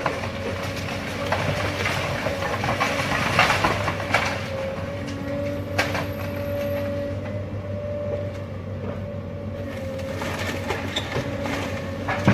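High-reach demolition excavator working: its engine and hydraulics running steadily with a held whine. Several sharp knocks and cracks come through it as brickwork breaks and rubble falls.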